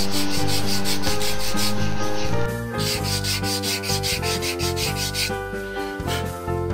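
A carved wooden fishing-lure body being hand-sanded with a sandpaper strip stretched on a homemade bow-frame tool, in quick back-and-forth strokes of about three a second. The strokes turn quieter about two and a half seconds in and stop shortly before the end.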